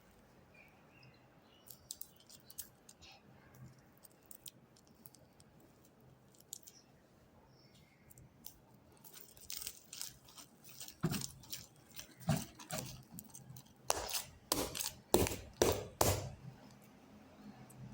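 Sticky, fluffy foam slime being squeezed and pulled by hand. Faint clicks come first, then from about halfway a run of sharp, wet crackling snaps that gets louder, loudest near the end.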